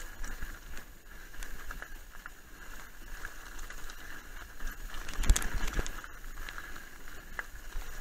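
Mountain bike rolling down loose rocky scree, its tyres crunching over stones and the bike rattling, with a few harder knocks a little past halfway as it hits bigger rocks.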